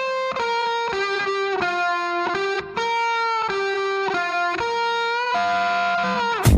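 Background music: a melody of held single notes that slide from one note to the next, about ten notes in all.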